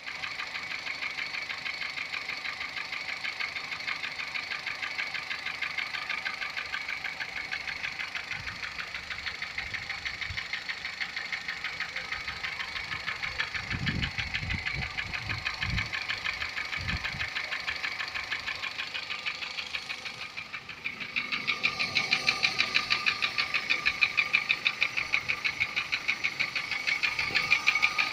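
Car engine idling with a fast, regular clacking tick, the noise the owner is asking about. A few low thuds come around the middle, and the clacking gets louder about 21 seconds in.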